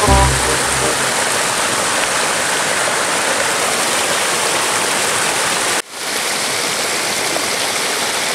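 Rushing water of a rocky mountain stream pouring over small cascades and rapids, a steady hiss. It cuts out for an instant about six seconds in and comes straight back.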